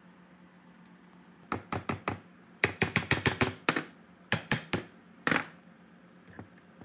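Rusted metal cylinder barrel of an air compressor pump clacking against its crankcase as it is rocked back and forth by hand to work it loose: quick bursts of sharp metallic clicks, the last one alone a little past the middle.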